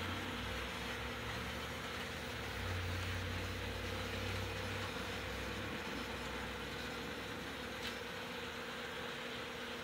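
Model trains running on a tabletop layout: a steady whir and rumble of small electric motors and wheels on the track, with a steady hum underneath. The low rumble eases off a little past halfway, and there is a single click near the end.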